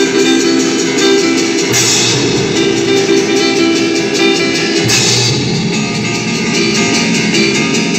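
Loud show music with guitar and drums, with two bright, splashy accents about two seconds and five seconds in.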